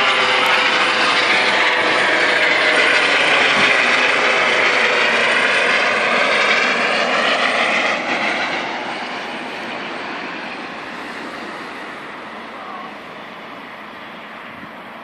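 Eurocopter EC135 trauma helicopter flying away overhead: steady rotor and turbine noise, loud for about eight seconds, then gradually fading as it moves off.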